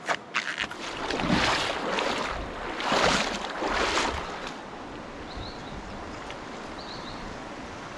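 Feet wading and splashing through a shallow, rocky trout creek, several splashing strides in the first half, then the creek's steady flow with a few faint high chirps.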